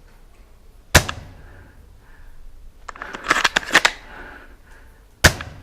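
Airsoft sniper rifle firing: a sharp crack about a second in and another near the end. Between them comes a quick clatter of several clicks.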